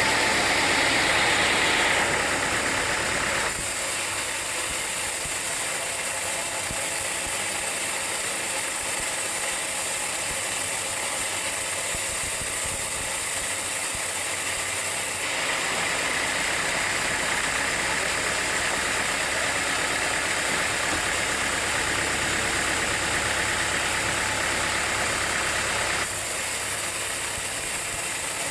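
Sawmill machinery running, a steady mechanical noise with an engine-like hum. It drops abruptly a few seconds in, rises again about halfway, and drops near the end.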